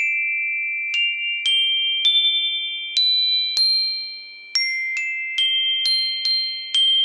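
Homemade xylophone of tuned aluminium tubes suspended on string over an oak base, struck with a mallet: about a dozen notes played up the scale and back down, each bar ringing on long after the strike so the notes overlap. Really loud, almost annoyingly so.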